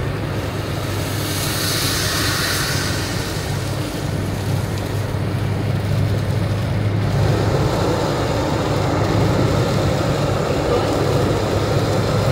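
Steady road and engine noise heard from inside a car driving at highway speed on a rain-soaked road, with the hiss of tyres and spray on the wet surface. A brief sharper hiss comes about two seconds in, and the noise grows somewhat fuller after about seven seconds.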